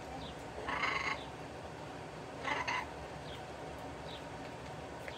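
Caged pet parrot squawking, two short harsh calls, one about a second in and one a little past halfway, with faint high chirps in between.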